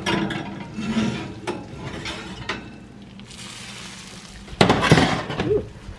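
Kitchen clatter of dishes, pans and cutlery being handled, with a soft hiss a little past halfway and a loud clunk near the end.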